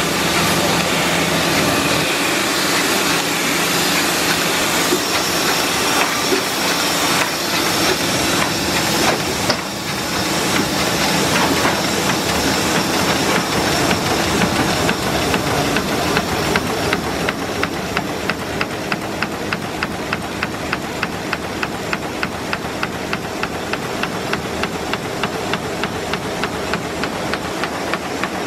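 Heidelberg Speedmaster SM 52 five-colour sheet-fed offset press running, a steady mechanical noise. From about halfway through, a regular clatter comes in at about two strokes a second.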